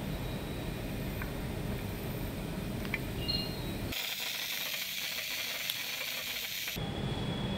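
Steady low workshop hum with a couple of small clicks, then about four seconds in a high hiss of compressed nitrogen at a fitting on a Challenger 1 hydrogas suspension unit, lasting about three seconds and cutting off sharply.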